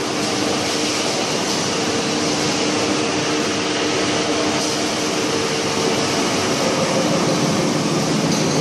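Machinery on a steel drum production line running steadily: an even mechanical rush with a faint steady hum under it.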